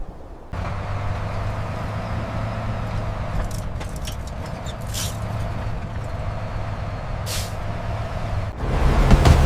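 A motor running steadily with a low hum, starting about half a second in, with a few brief hissing scrapes. Near the end it gets louder and harsher.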